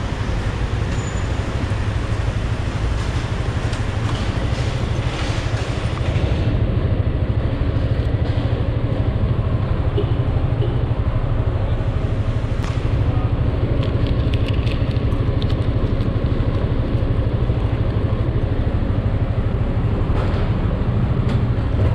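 A motorcycle engine idling and pulling away at low speed, a steady low engine note close to the bike-mounted camera. A few light clicks come in around the middle.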